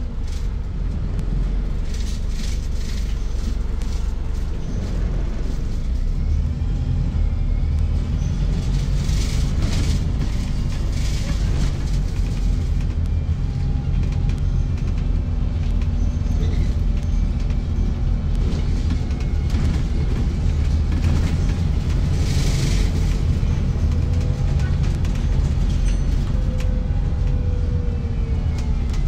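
Inside a moving Volvo B5TL/Wright Gemini 3 double-decker bus: the engine and road rumble run on steadily, with scattered rattles from the bus's fittings. There is a brief hiss about two-thirds of the way through.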